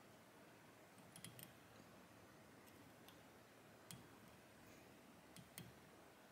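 Near silence: quiet room tone with a few faint, small clicks as a thread bobbin holder is wrapped around a fly hook clamped in a fly-tying vise.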